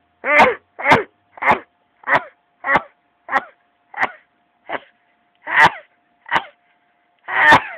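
A person's nose honking: a run of about eleven short, pitched nasal honks, about one every two-thirds of a second, the last a little longer.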